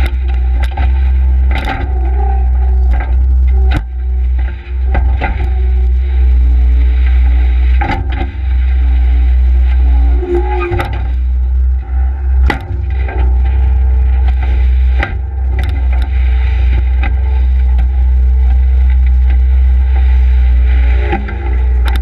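Case skid steer loader's diesel engine running steadily with a deep drone, with scattered clanks and scrapes as the loader works sand and dirt.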